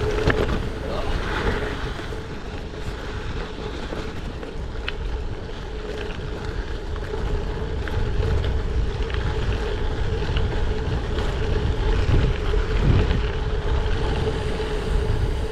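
Wind rushing over the microphone of a GoPro Hero 9 while riding a gravel bike, a steady low rumble with a constant hum and the occasional faint tick of tyres on the road surface.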